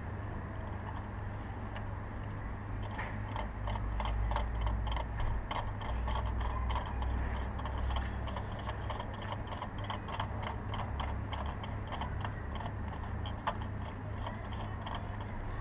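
Ratchet wrench clicking in a steady run of sharp ticks, a few a second, over a low hum; the clicks start about two and a half seconds in and stop shortly before the end.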